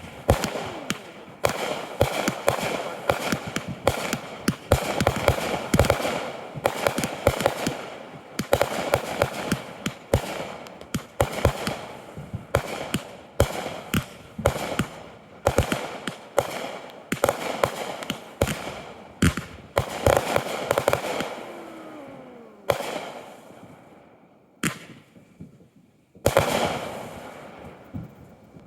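Consumer fireworks show: a dense barrage of aerial shell bursts and bangs with crackling, one falling whistle about twenty seconds in. The barrage thins out briefly near the end, then a last cluster of bangs goes off.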